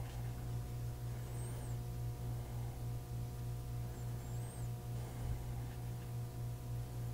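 Steady low electrical hum, with two faint short high chirps about a second and about four seconds in.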